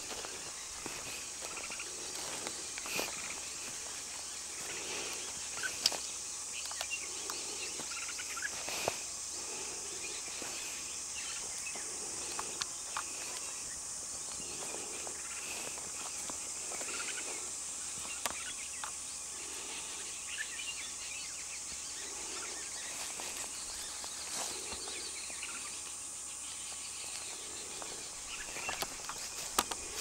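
Dry-hillside ambience: a steady high insect hiss with faint bird calls, including a soft low call repeated about every second and a half. A few sharp snaps, like footsteps on dry twigs and leaf litter, come through, more of them near the end.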